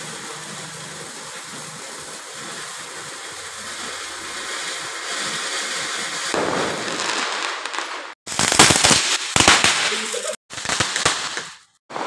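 A firework fountain hissing steadily as it sprays sparks, growing louder over several seconds. From about eight seconds in come loud, rapid crackling and popping fireworks, cut off abruptly twice.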